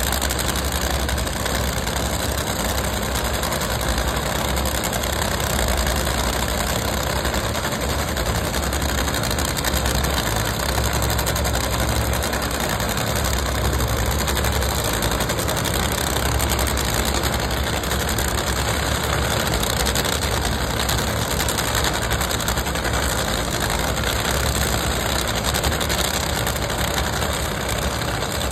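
Large race-car engines idling steadily and loudly, a low, uneven running with no revving.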